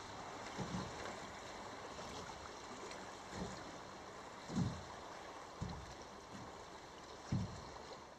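River water flowing, a steady rush of current, with a few soft low thumps scattered through it.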